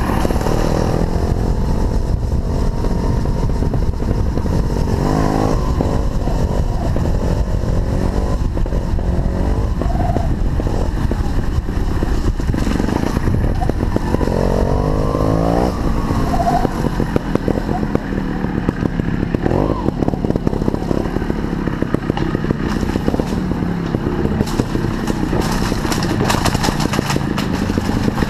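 Sherco 290 trial motorcycle's single-cylinder two-stroke engine running, heard from a helmet-mounted camera, with its pitch rising and falling several times as the throttle is opened and closed.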